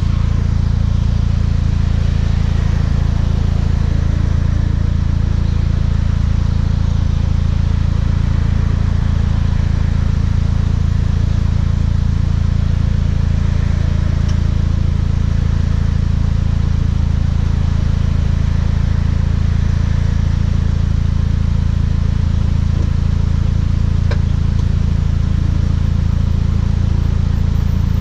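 Volkswagen Mk6 GTI's turbocharged 2.0-litre four-cylinder through a Beluga aftermarket exhaust, held at a steady cruise: a constant low exhaust drone with no revving, over a steady hiss.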